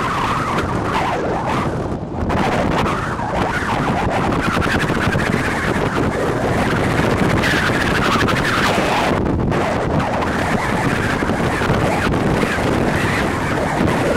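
Wind buffeting the microphone: a loud, steady rushing rumble.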